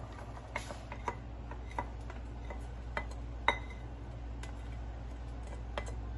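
Chopped onion tipped from a bowl into a nonstick frying pan: scattered light clicks and taps as pieces drop in and the bowl's edge touches the pan, the sharpest about three and a half seconds in. A steady low hum runs underneath.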